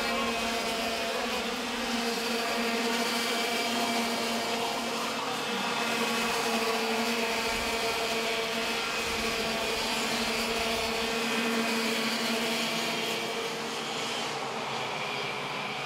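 Two-stroke racing kart engines running with a steady, high-pitched buzz that holds a nearly constant pitch.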